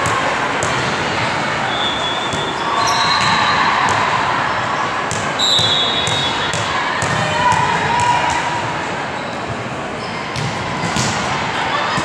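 Busy indoor volleyball hall: sharp thuds of balls being hit and bounced on the courts, short high shoe squeaks on the court surface, and a steady murmur of voices.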